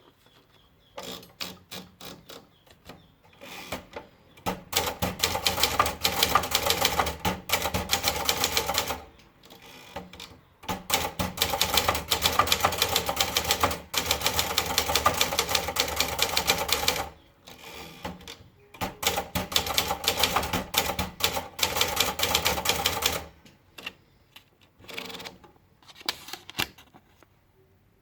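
Valiant manual typewriter being typed on. A few separate key strikes lead into three long runs of fast typing, and a few single strikes follow near the end.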